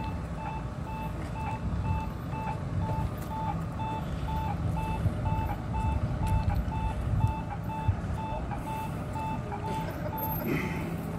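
An electronic beep repeating evenly about twice a second, typical of a pedestrian crossing signal, stopping shortly before the end, over the low rumble of street traffic and a tram rolling in slowly.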